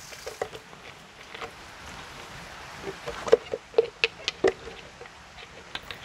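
Thin clear plastic bottle crinkling and crackling as it is handled, with a cluster of sharp crackles about three seconds in.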